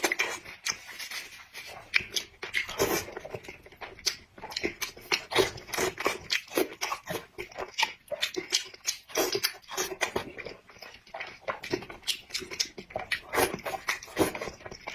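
Close-miked eating: steady, irregular chewing with wet smacks and clicks of the mouth.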